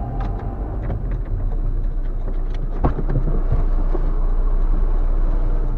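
Car interior noise picked up by a dashcam microphone: a steady low engine and road rumble with scattered light clicks and rattles, and a sharper knock about three seconds in.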